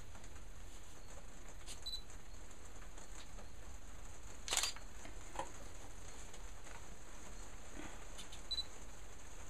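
Steady low background hum and hiss, with one short rustle about four and a half seconds in and a few faint ticks.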